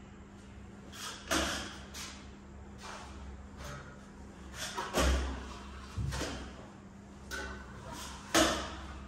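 Hand tools scraping and knocking on a stone wall panel: a string of irregular knocks and short scrapes, the loudest near the end.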